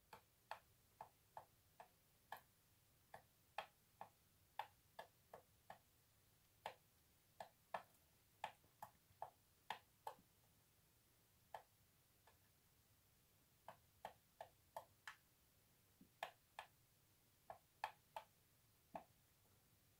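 Faint, irregular sharp clicks or taps, one or two a second, with a pause of a couple of seconds midway.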